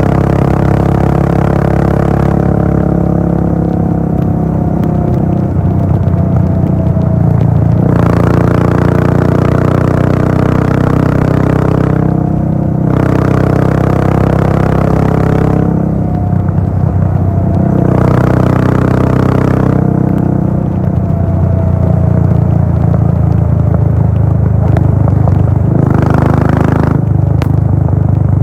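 Royal Enfield Bullet 500's single-cylinder four-stroke engine running at highway cruising speed through a Gold Star full-system exhaust, a steady thumping exhaust note whose pitch sags slowly at times. Several stretches of louder rushing noise come and go over it.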